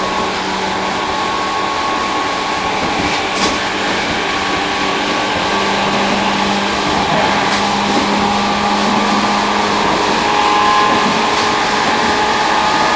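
Tobu 1800 series electric train running at speed, heard from the vestibule of a motor car: steady traction motor and gear hum over wheel-on-rail rumble, with a faint click roughly every four seconds.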